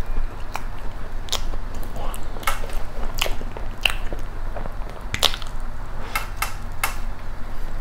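Close-miked eating of a dacquoise: chewing with wet mouth clicks and crackles at irregular intervals, and a fresh bite about six seconds in, over a low steady hum.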